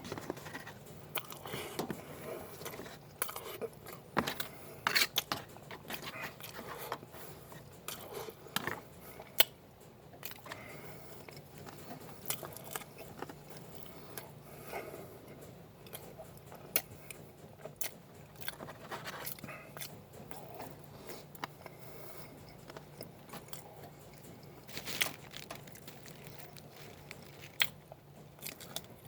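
A person chewing and biting food, with irregular sharp clicks.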